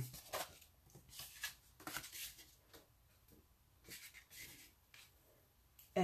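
Cardstock being handled on a tabletop: scattered faint rustles and light taps of paper, with a quieter stretch near the middle.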